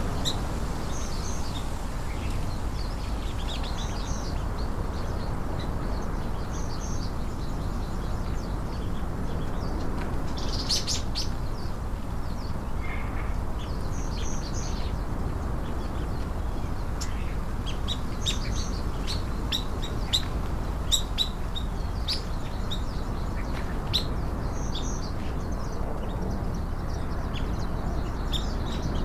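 Small birds chirping in short, repeated high calls, scattered throughout and busiest in the second half, over a steady low background hiss.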